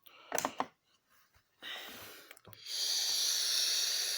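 A person breathing close to the microphone: a shorter intake, then a long steady exhale that starts about halfway through and is still going at the end.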